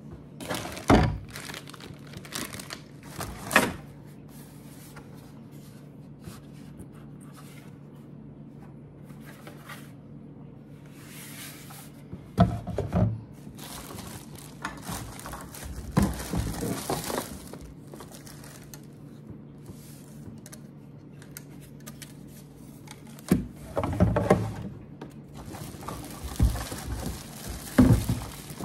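Plastic wrapping crinkling on a plastic camping sink, with several sharp knocks and bumps from handling the sink and its box. A steady low hum runs underneath.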